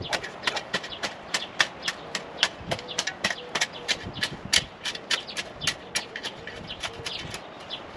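A rapid, irregular series of sharp clicks and knocks, about three or four a second.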